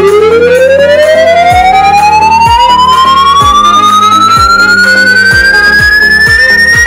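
A siren winding up in one long rising wail, its pitch climbing steeply at first and then more slowly, over background music with a steady beat.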